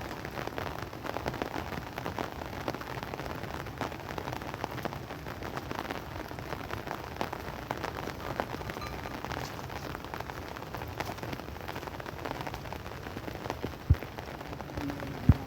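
Steady rain with many small drops pattering on a surface. Two short, dull thumps come near the end.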